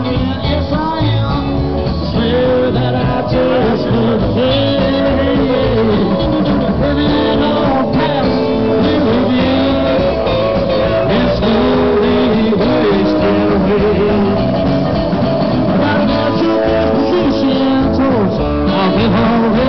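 Live band playing loud: a singer over electric guitars and drums, in a rock-and-roll style.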